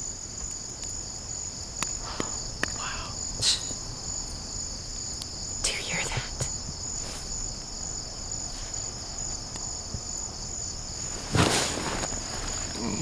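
Crickets chirping in a steady high trill, with a few brief rustles over it, the loudest near the end.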